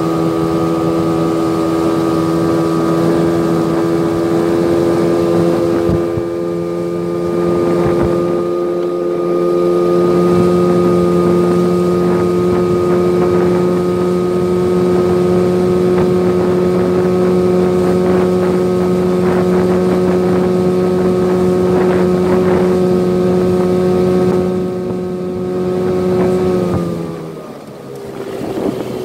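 Jon boat's motor running steadily at cruising speed, with wind on the microphone; near the end it is throttled back and its pitch falls as the boat slows.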